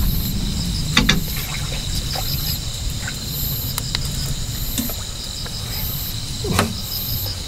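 Night insects (crickets) chirping steadily, with a fast trill and a high pulsed call about once a second, over a low rumble. Two short knocks come through, about a second in and near the end.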